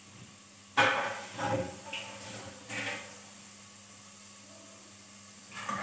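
A sudden sharp knock about a second in, followed by a few lighter knocks. Near the end, ginger and garlic begin sizzling in hot oil as a wooden spoon stirs the pot.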